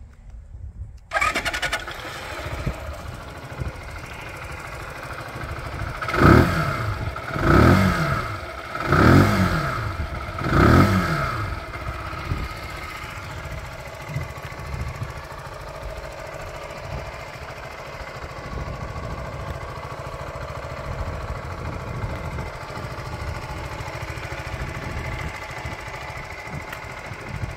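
2022 Zontes GK125's single-cylinder 125 cc engine starting about a second in and settling to idle. It is blipped four times between about six and eleven seconds in, each rev rising and falling back, then idles steadily.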